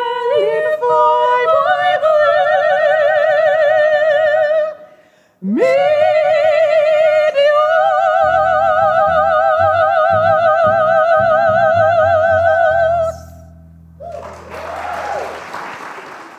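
Female singers with strong vibrato finish a song, breaking off briefly and then holding one long final note while a band's low chords on upright bass and piano come in under it. The note stops about three seconds before the end, and a short burst of audience applause follows and fades out.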